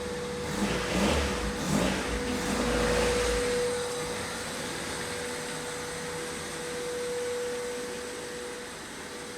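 A machine running steadily with a constant whine, rougher and louder for the first three or four seconds, then settling.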